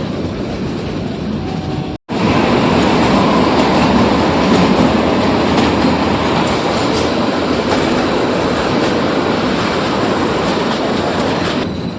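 Narrow-gauge train running: a steady rumble of the carriages with faint clicks of wheels on the rails. The sound cuts out for an instant about two seconds in and comes back louder.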